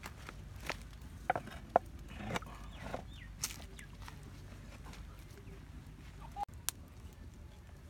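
A large aluminium cooking pot being set down on an iron fire stand, giving a few light knocks and one sharp clack about two seconds in. Faint bird calls come now and then over a quiet outdoor background.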